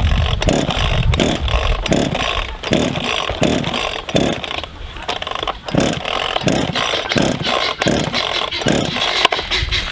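A small 33 cc two-stroke chainsaw being pull-started with the choke set halfway: the starter cord is yanked over and over in a steady series of strokes, the engine turning over without catching, which the owner puts down to old gas.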